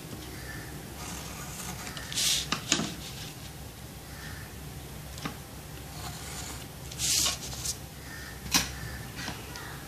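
A plastic circle template being moved about and set down on drawing paper while a pencil traces a circle through it: two short scratchy rushes and a few sharp clicks.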